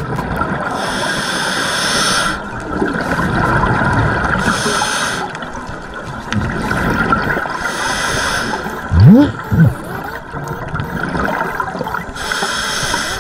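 Underwater breathing of a scuba diver through a regulator, heard through a GoPro housing: bubbly hissing bursts of exhaled air about every four seconds over a steady hiss. A short rising squeak sounds about nine seconds in.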